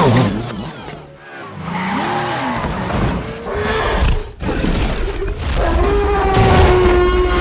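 Action-film sound mix: orchestral score over racing car and motorcycle engines, with heavy crashing impacts and a deep rumble from about halfway, as King Kong stomps down and crushes cars.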